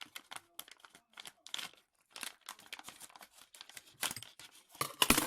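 Crinkling and rustling of a plastic Lego minifigure pack being cut and pulled open with scissors: irregular crackles, loudest about five seconds in.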